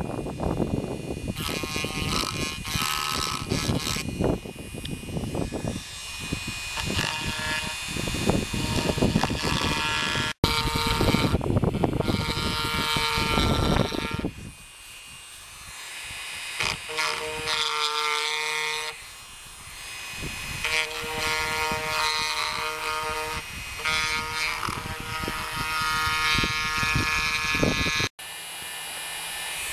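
Dremel rotary tool with a small cutter bit grinding cured Flex-Tec HV epoxy filler off a wooden window sash. The motor gives a high whine over a rough grinding noise. The grinding eases for several seconds midway, leaving mostly the whine, then picks up again.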